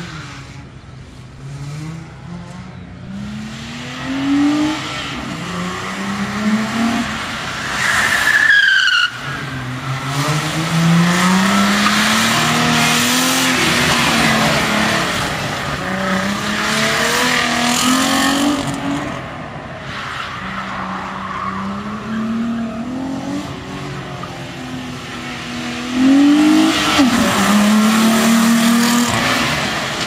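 Audi quattro coupé engine revving hard through the gears, its pitch climbing and dropping back again and again as the car accelerates, shifts and brakes around a tight course, with tyres squealing on wet tarmac and a short falling squeal about eight seconds in.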